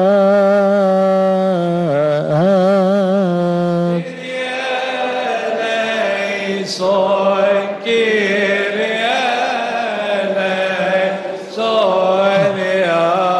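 Coptic Orthodox liturgical chant. A single male voice holds a long chanted note with vibrato, and about four seconds in many voices take up a chanted response together.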